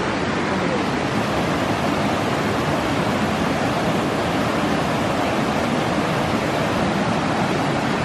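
Rocky stream rushing over boulders: a steady, even rush of water.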